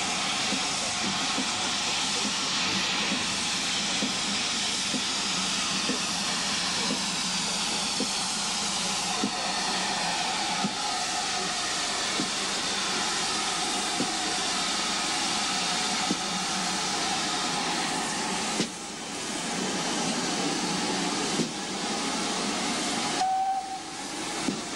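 GWR 6100-class 2-6-2 tank engine 6106 running into a station with its train, steam hissing steadily, with small regular knocks and a faint whine falling slowly in pitch.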